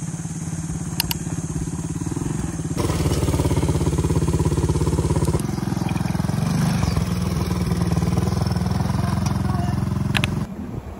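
Small ATV (quad bike) engine running steadily while being ridden, in stretches cut together, with a shift in the sound about three and five seconds in.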